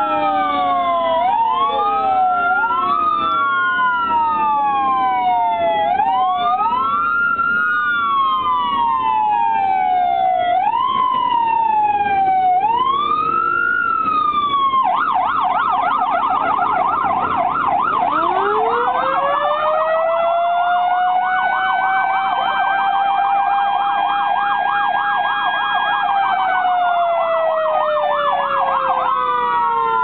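Electronic and mechanical sirens of a 1964 Commer VK fire truck sounding together. The electronic siren wails up and down, switches to a fast yelp about halfway through, and goes back to a wail near the end. Meanwhile the motor-driven mechanical siren winds up from low to a steady howl, then slowly winds down.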